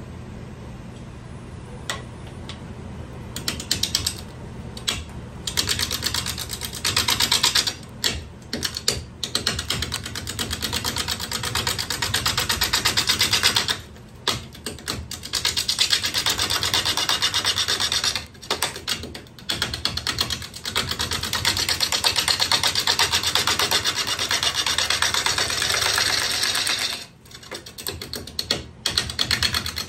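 Wood lathe turning a rough red cedar bowl blank while a bowl gouge cuts into it: long stretches of loud scraping cuts with a rapid ticking as the gouge meets the uneven blank each turn, broken by a few short pauses, over a low steady motor hum. The first cuts begin about three seconds in.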